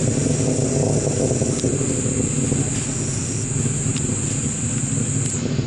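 Distant roar of the PSLV rocket's motor during ascent, a steady low rumble. A steady high hiss runs over it and cuts off suddenly near the end.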